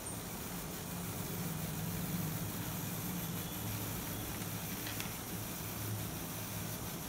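Small electric motor of a LEGO Simple Powered Machines racer car running its wheels through a gearbox in first, the low gear: a steady motor and gear hum as the car rolls slowly.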